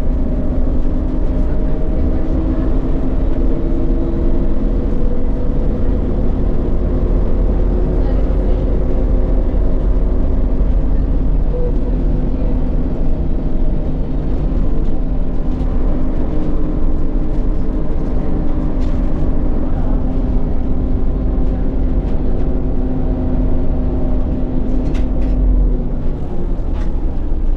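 Onboard sound of a 1998 Volvo B10BLE bus's rear-mounted diesel engine pulling the bus along: a heavy low rumble with an engine note that rises and falls several times as it accelerates and changes gear, and a few light rattles.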